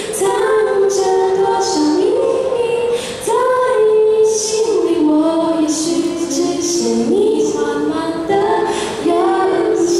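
Two young female voices singing a Chinese-language song, partly in two-part harmony, with an acoustic guitar accompanying them.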